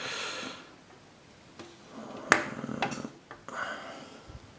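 Small sharp clicks of steel tweezers against a Medeco Biaxial lock cylinder's brass housing and pin as a mushroom driver pin is picked out, the loudest a single snap about two seconds in, followed by a few lighter ticks.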